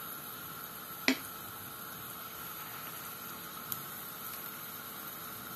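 Hot oil sizzling steadily in a frying pan around spooned-in liver fritter batter, with a sharp clink about a second in and a fainter tick later.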